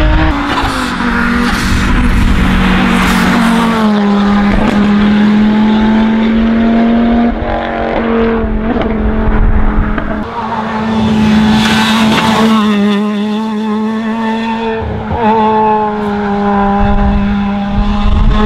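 Rally car engines running hard at high revs, with tyres squealing through corners.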